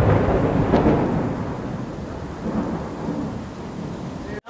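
A loud thunderclap breaking over heavy rain, then rolling on as a low rumble that fades over the next few seconds.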